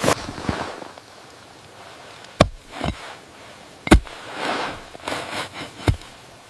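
Five sharp cracks spread unevenly over several seconds, the loudest about four seconds in, with stretches of hissing noise between the later ones.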